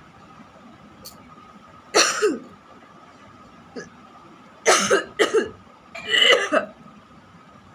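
A person coughing on purpose in four harsh bursts: one about two seconds in, two close together near five seconds, and a longer one around six seconds.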